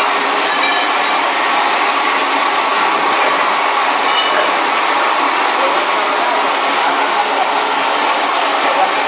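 Toilet-roll log cutting machine with a circular blade running, giving a steady, continuous mechanical noise with no separate cutting strokes standing out.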